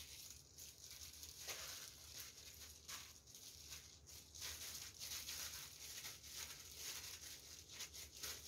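Faint rustling of disposable plastic gloves as gloved hands scoop and press soft mashed kabocha-squash dough in a glass bowl, with irregular soft crackles.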